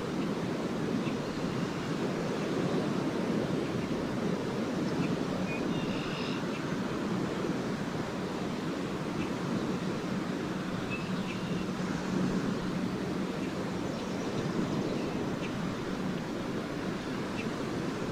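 Small lake waves washing steadily onto the shore, with brief faint twitters of swallows now and then.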